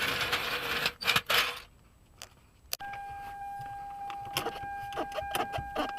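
Metal clinking and rustling as tools are handled. A click comes near the middle, and then a steady high tone sets in under scattered light clicks.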